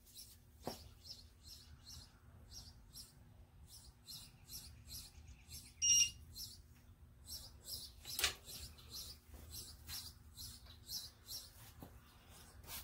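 A small bird chirping over and over, about three short high chirps a second, with a brief whistled call near the middle. A sharp click about eight seconds in and a faint steady hum lie underneath.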